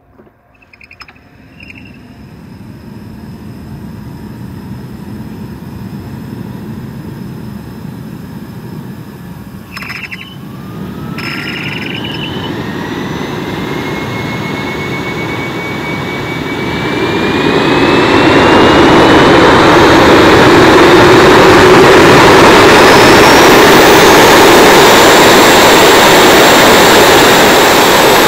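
Homemade jet engine starting up and spooling up. A rushing noise builds, a couple of sharp clicks come about ten seconds in, then a whine climbs steadily in pitch as the engine comes up to a loud, steady run from about eighteen seconds on.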